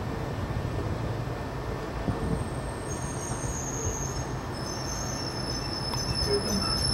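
Steady low rumble of background noise with a faint hum; from about three seconds in, several high-pitched squealing tones hold over it.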